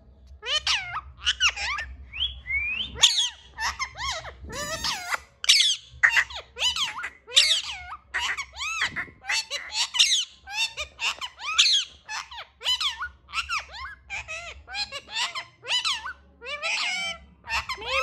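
Indian ringneck parakeets chattering: a fast, unbroken run of short squeaky chirps and screeches, about two to three calls a second, each sliding sharply in pitch.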